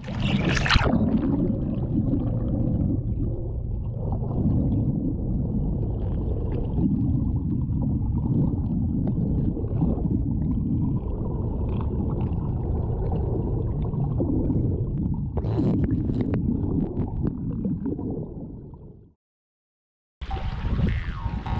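Water rushing and gurgling past a camera held at and below the waterline of a small electric boat under way, heard as a muffled, steady low rumble with a brief hiss at the start. It fades out near the end.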